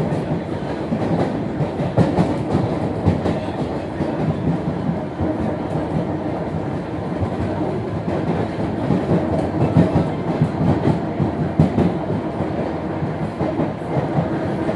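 Electric commuter train running along the track, heard from inside the carriage: a steady rumble of wheels on rails with irregular clattering knocks as the wheels cross rail joints.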